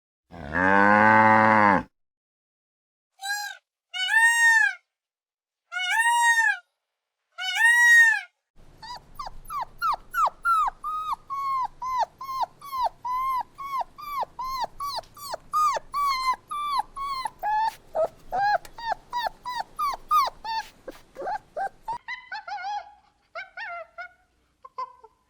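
A cow's moo ends the first two seconds, then a dog whines and howls in four separate rising-and-falling calls, followed by a long run of quick, high yips and whimpers, several a second, that tails off near the end.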